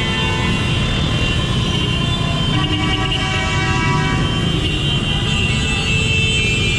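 Congested road traffic: motorcycle and car engines running close by, with horns sounding from several vehicles now and then.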